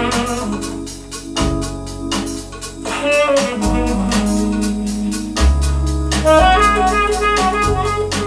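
Music with a steady beat, a bass line and a melody over it.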